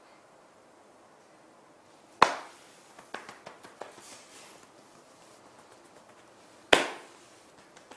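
Two sharp slaps of a hand on a person's back, about four and a half seconds apart, with a few lighter taps after the first.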